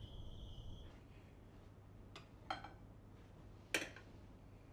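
Night insects chirring steadily, cutting off about a second in. Then a quiet room with a few faint clinks of tableware; the sharpest comes about a second before the end.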